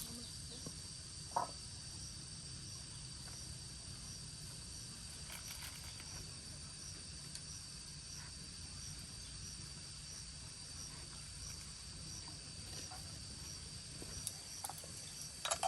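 Insects trilling steadily: a high, continuous drone with a regular pulse about one and a half times a second, over a low steady rumble. A few faint knocks, one just over a second in and a few near the end.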